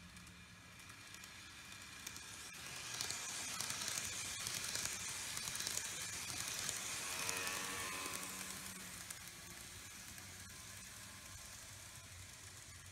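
TOMIX N-gauge E3 series Komachi shinkansen model passing on curved track: a crackling rattle of wheels on the rails with a faint motor whine. It grows as the train approaches, is loudest from about three to eight seconds in, then fades.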